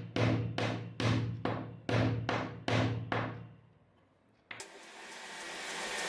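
Background music: evenly spaced struck notes, about two a second, over a low tone. They stop about three and a half seconds in, and after a brief dead gap a rising swell of hiss builds toward the next section.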